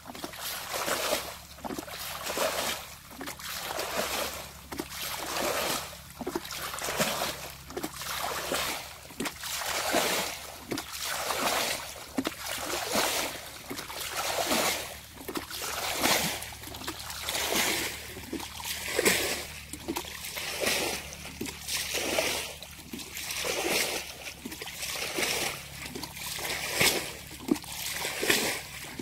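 Muddy water splashing in a steady rhythm, about one splash a second, as a plastic bucket scoops water out of a shallow pool and throws it aside.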